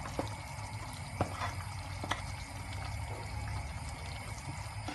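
Mutton curry with coconut milk bubbling in a pan while a wooden spatula stirs it, with a few short knocks of the spatula against the pan.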